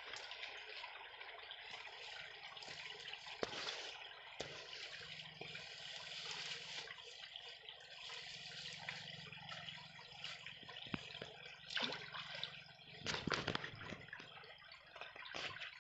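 Water flowing steadily through a narrow irrigation canal, with a few short sharp knocks or splashes, the loudest cluster a little before the end.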